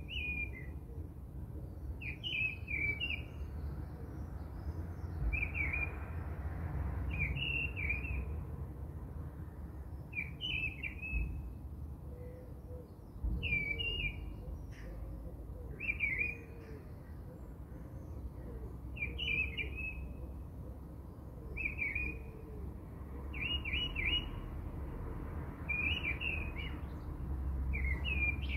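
A bird chirping, a short twittering phrase repeated about every two to three seconds, over a low steady rumble.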